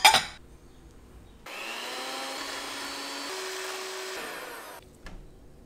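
Electric hand mixer running, its beaters whipping egg yolks and sugar in a glass bowl: a steady whir that steps up in pitch about halfway through and stops about a second before the end. A short loud burst of noise comes right at the start.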